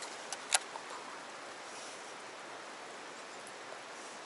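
Steady hiss of water, with a few sharp clicks in the first second, the loudest about half a second in.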